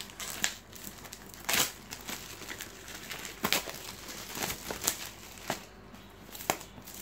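Clear plastic wrap being peeled and pulled off a cardboard headphone box: irregular crinkling and crackling, loudest about one and a half seconds in and again around three and a half seconds.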